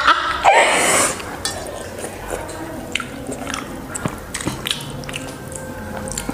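Eating half-boiled Maggi noodles by hand: fingers squishing through the soft noodles in a steel bowl and mouth chewing, with small scattered clicks. A short loud breathy burst about half a second in.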